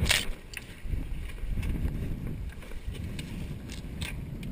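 Wind buffeting the microphone over water washing along the hulls of a Hobie 18 catamaran as it comes about. A sharp slap right at the start, then a few fainter slaps and ticks.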